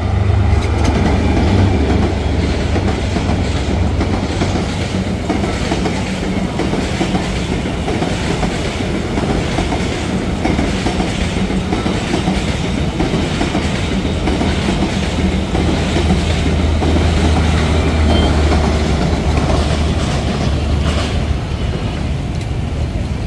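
Diesel-hauled passenger train passing at close range: the locomotive's engine drone is loudest at the start, then the coaches roll by with a steady rumble and clatter of wheels over the rails.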